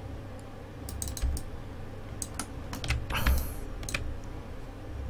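Scattered clicks of a computer keyboard and mouse, in small clusters, with a brief hiss a little past the middle.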